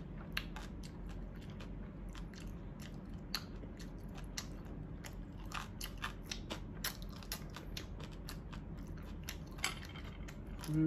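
A person chewing seafood papaya salad close to the microphone: irregular crunchy clicks, several a second, over a faint steady low hum.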